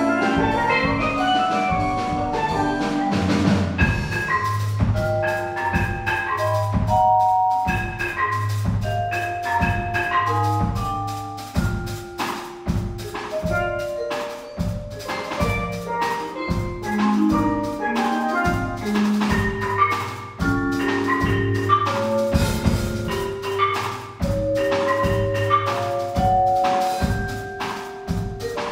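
Percussion quartet of tenor steel pan, vibraphone, marimba and drum kit playing an upbeat Latin-jazz piece: quick pitched mallet notes over a steady drum-kit beat.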